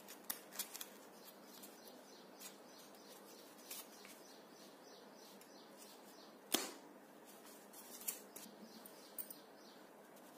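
Origami paper being handled and folded by hand: scattered crisp crackles and taps, the sharpest about six and a half seconds in, over a faint steady hiss.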